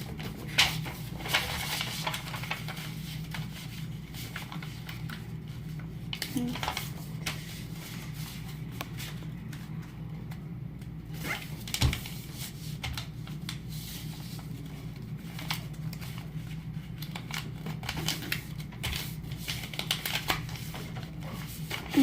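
Sheets of paper being folded and creased by hand: intermittent rustling and crinkling with a few sharper taps, over a steady low hum.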